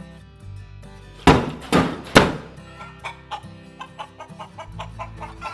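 Three loud knocks, then a rapid run of chicken clucks, over background music.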